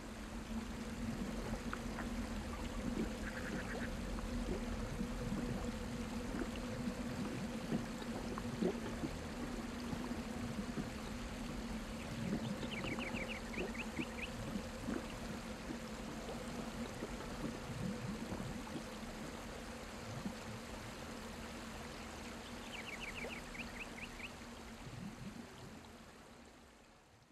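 Running, trickling water over a steady low hum, with scattered soft knocks. Twice, a short, rapid, high chirping trill cuts in, about halfway through and again near the end. The sound fades out at the end.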